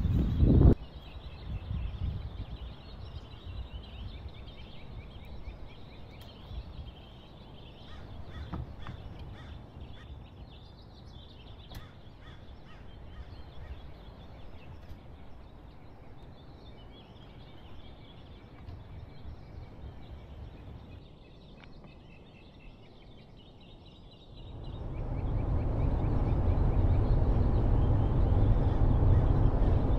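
Quiet outdoor ambience with faint birds chirping and a few light knocks. About three-quarters of the way in, a steady low rumble takes over: a minivan being driven, heard from inside the cabin.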